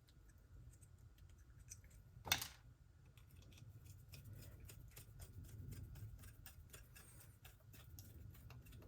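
Faint small metal clicks and ticks of a screwdriver turning the idle set screw back into a small-engine carburetor, with one sharper click about two seconds in.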